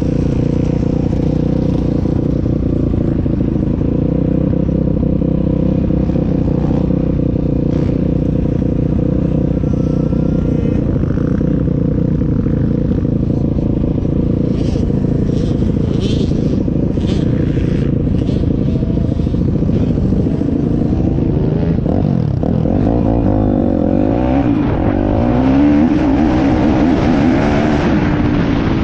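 Piranha P190 pit bike's single-cylinder four-stroke engine running steadily at low revs. About twenty seconds in, the revs rise and fall as the bike rides off across the dirt, and wind rushes over the microphone near the end.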